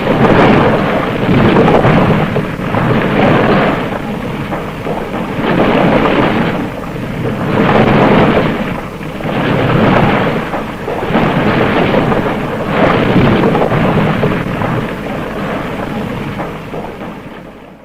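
Rumbling noise sound effect from a vintage Japanese monster-film library, thunder-like, rising and falling in swells every one to two seconds and fading out at the very end.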